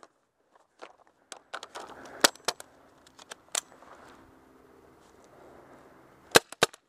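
RAP4 468 magfed paintball marker firing single sharp pops, two strong shots in the middle and a quick pair near the end, with smaller clicks and rustling between.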